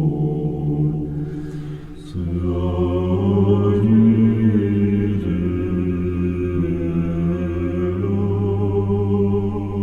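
Choir chanting in long held chords, with a short break about two seconds in before the held notes resume.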